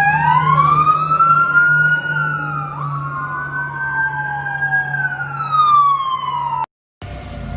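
Tsunami warning sirens wailing, sounding a tsunami warning. Two sirens slowly rise and fall in pitch out of step with each other, so their tones cross, over a steady low hum. The sound cuts off abruptly near the end.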